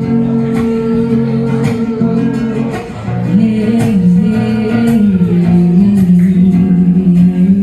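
Live acoustic guitar strumming under long held sung notes, the pitch gliding and stepping lower from about three seconds in.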